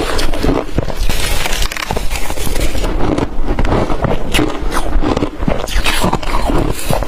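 Close-up crunching of blender-crushed ice being bitten and chewed in the mouth: a dense run of irregular crackles and crunches.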